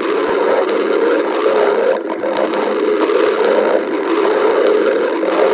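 A person's stomach growling, recorded up close: one long, continuous rumble with no break.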